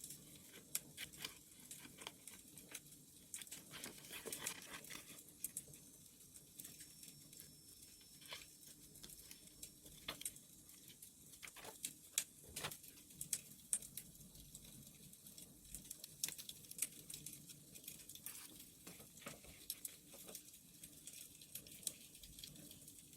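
Wood fire crackling, with irregular sharp pops and snaps over a faint low hiss.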